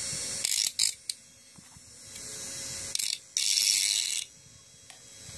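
Homemade mini grinder, a bare DC motor with a small cutting disc, cutting into a concrete nail in several short harsh bursts. The longest burst comes about three to four seconds in, with quieter motor running between the bursts.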